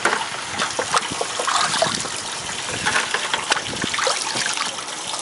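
Seawater running into a lobster holding tank, trickling and gushing, with irregular small splashes as a hand moves among the lobsters in the water.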